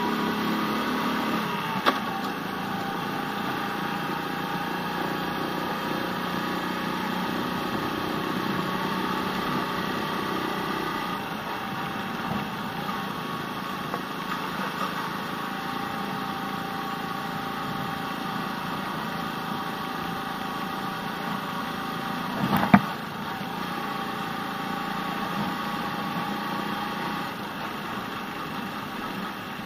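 Small moped engine running steadily at low road speed, with tyre and wind noise, as heard from the rider's seat. A brief sharp knock about two-thirds of the way through is the loudest sound.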